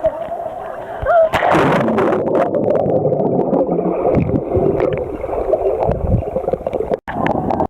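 Lake water splashing and gurgling around a waterproof camera, muffled, with a louder splash about a second and a half in.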